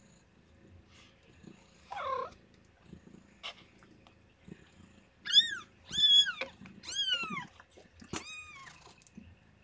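Day-old kittens crying four times in quick succession, each a high-pitched squeak that rises and falls, over a cat's low steady purring. A shorter falling call comes about two seconds in.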